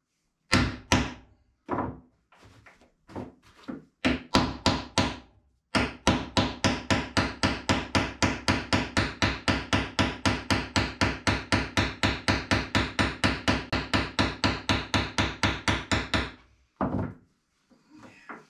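Hammer striking a grommet-setting punch to set a stainless steel grommet in sailcloth. First come a few single blows, then a quick, even run of blows, about four to five a second, for some ten seconds, then one last blow.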